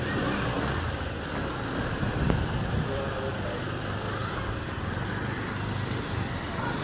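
Street noise with vehicle engines running close by and indistinct voices; a short knock a little over two seconds in.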